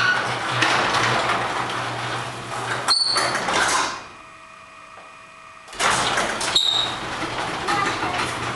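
Craftsman chain-drive garage door opener running as it closes the garage door: a steady motor hum under noisy mechanical running, ending in a click about three seconds in. Then a short quieter stretch, after which loud noisy running resumes with another click.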